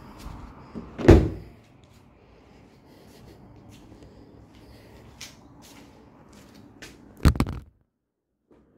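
Hard thuds: one loud thud about a second in, then two or three quick knocks close together near the end, after which the sound cuts out.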